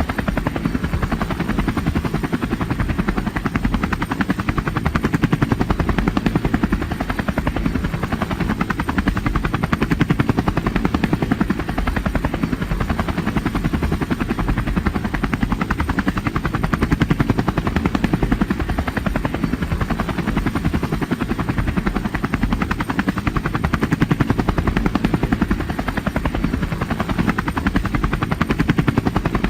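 Steady helicopter rotor and engine noise, with a fast, even rotor chop and strong low rumble.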